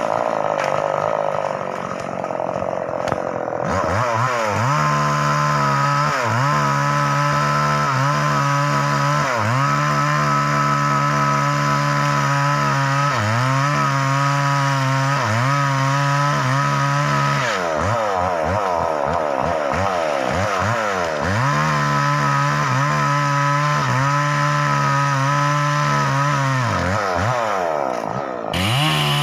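Chainsaw cutting into a standing tree trunk. It runs lower for the first few seconds, then is revved up about four seconds in. From there it holds high speed, dipping in pitch every couple of seconds as the chain bites into the wood and picking up again.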